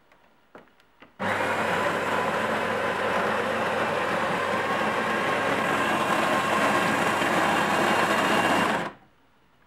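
The built-in grinder of a Jura Impressa C5 bean-to-cup coffee machine grinding coffee beans, the first step of brewing a cup. A couple of small clicks, then a loud, steady grinding starts about a second in and cuts off abruptly near the end.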